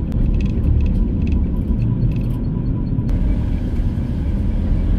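VW T4 van driving along, a steady low engine and road rumble heard from inside the cab.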